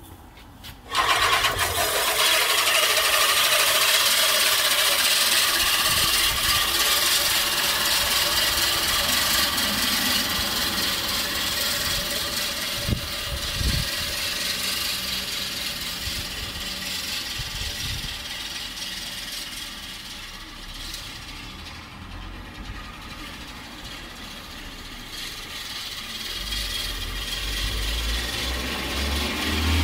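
American Lawn Mower 1304-14 14-inch five-blade push reel mower whirring and snipping as its spinning reel cuts grass, starting suddenly about a second in. It fades as the mower moves away, with a couple of brief knocks midway, and grows louder again near the end.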